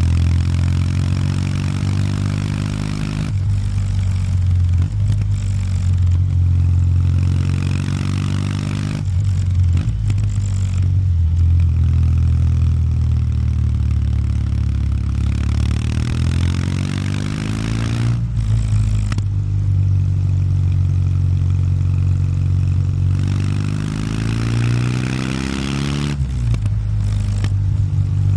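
Kawasaki W800 Street's air-cooled parallel-twin engine with stock exhaust, ridden up a mountain road: a steady exhaust note that rises in pitch under throttle and drops out briefly about four times as the throttle is rolled off, then picks up again.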